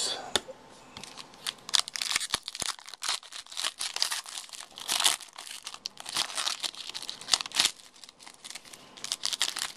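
Foil wrapper of a 2011 Panini Gridiron Gear football card pack crinkling and tearing as it is ripped open by hand, a run of irregular sharp crackles.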